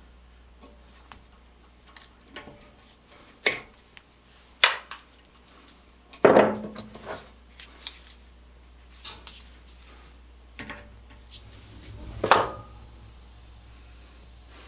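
Small metal clicks and clatter from hand tools and wire terminals being handled during crimping work, irregular and spread out, the loudest about six seconds in and another about twelve seconds in.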